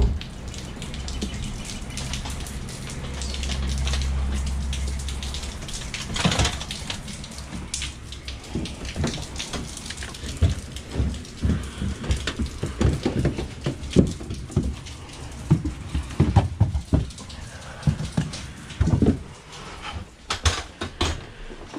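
Knocks, bumps and rattles of a drain pipe-camera reel cart and its monitor case being wheeled and carried into a basement, over a steady hiss. A low rumble swells and fades a few seconds in, and the knocks come thick and irregular through the second half.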